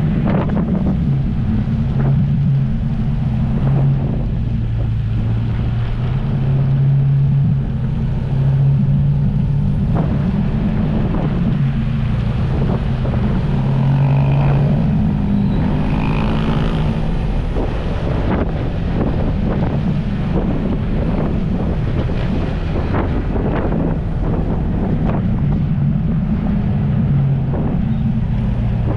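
Jet ski engine running under way, its pitch rising and falling a little with the throttle, with wind buffeting the microphone and water slapping against the hull.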